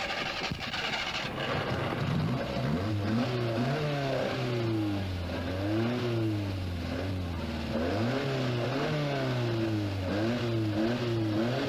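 Rally car engine accelerating hard, its pitch climbing and dropping back again and again as it goes up and down through the gears, after a rush of noise in the first second or so.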